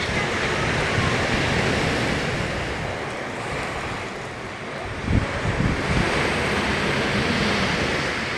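Black Sea surf breaking and washing in, a broad rush that swells, eases off past the middle, and builds again. Wind buffets the microphone about five seconds in.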